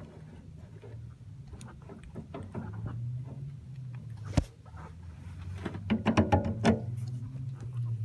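Knocks and clatter from hands-on work on a boat steering cable at an outboard motor: a single sharp knock about four seconds in and a burst of several knocks near six to seven seconds, over a steady low hum.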